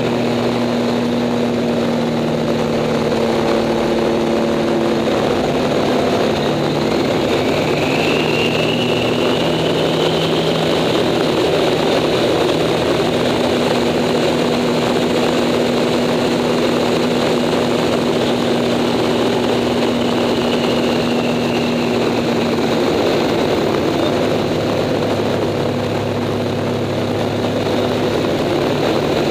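Acroduster SA750 biplane's piston engine and propeller running at power, heard from the cockpit under heavy wind rush. The engine note shifts a few times as the plane manoeuvres, and a thin whistle rises and falls about a third of the way in.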